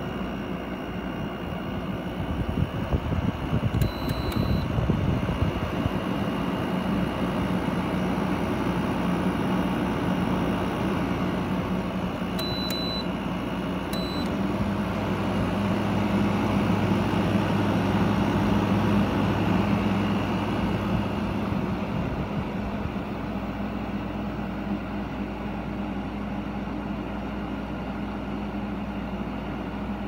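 Frigidaire 6,000 BTU window air conditioner running, its fan blowing steadily. Its control panel gives short high beeps, once about four seconds in and twice a little before the middle. Soon after the later beeps a low steady hum joins the fan noise, then eases off in the last third.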